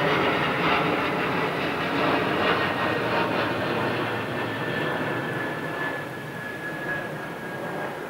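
Distant engine drone that slowly fades, its pitch gradually falling.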